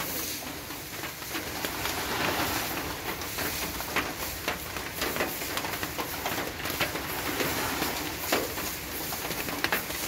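Small waves breaking and washing up onto a sand beach: a steady rush of surf with scattered short clicks and crackles through it.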